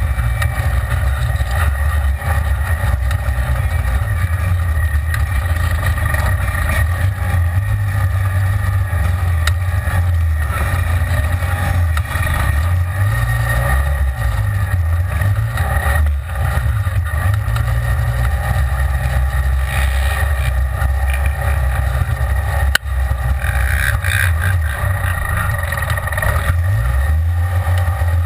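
Side-by-side UTV engine running as it drives along a dirt trail, heard from inside the open cab, its pitch rising and falling with the throttle. One sharp knock about three quarters of the way through.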